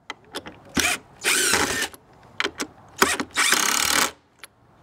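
DeWalt cordless driver running in several short bursts, driving wood screws through the spokes into a wooden water-wheel hub, with sharp clicks between the runs.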